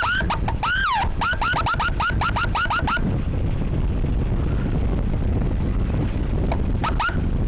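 Electronic emergency siren sounding a rapid chirping yelp, about four or five rising chirps a second with one longer rising-and-falling sweep, cutting off about three seconds in; two more short chirps come near the end. Under it runs steady wind and road rumble from the moving motorcycle.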